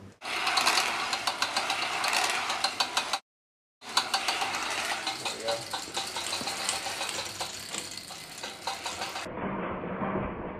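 A machine running steadily with a fast rattle, broken by a half-second dropout about a third of the way in. Near the end it gives way to a duller, quieter sound.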